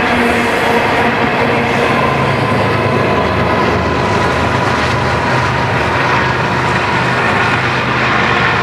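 Loaded double-stack intermodal train rolling past: a steady rumble and rattle of well cars on the rails. About halfway through, the low drone of two BNSF diesel locomotives running as mid-train distributed power joins in as they pass.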